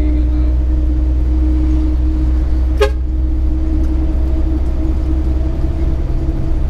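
SANY dump truck's diesel engine droning steadily inside the cab while driving, with one very short horn toot about three seconds in.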